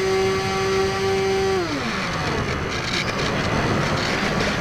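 Firebird Stratos RC airplane's electric motor and propeller whining steadily, then throttled down about a second and a half in, the pitch sliding quickly away and leaving the rush of wind over the onboard camera as the plane glides low.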